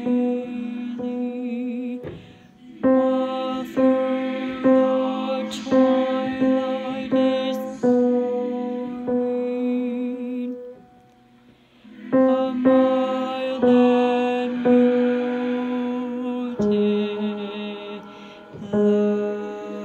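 A tenor voice singing a slow, soft choral line in long held notes. It breaks off briefly about two seconds in, stops for a second or so around eleven seconds, then sings on.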